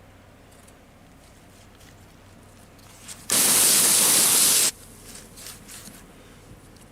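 Garden hose spraying water in one burst of about a second and a half, rinsing dirt off freshly harvested vegetables, starting a little past midway and cutting off suddenly. Faint drips and clicks come before and after it.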